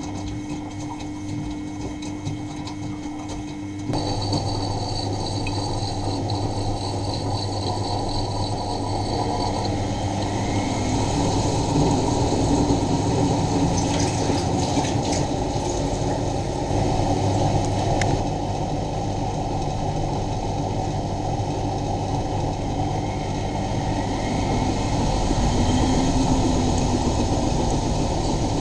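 Miele Novotronic W923 washing machine running its cycle: a pump-like hum with faint clicking, then about four seconds in a louder steady run of the drum motor with water sloshing, slowly building.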